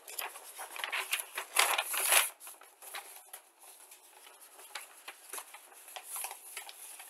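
Rustling and crinkling of a paper instruction sheet being handled, loudest in the first two seconds, then fainter scattered rustles.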